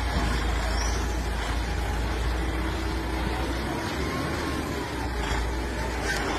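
DAF XF lorry's diesel engine running at low revs as the tractor unit and its trailer creep past close by, a steady low rumble.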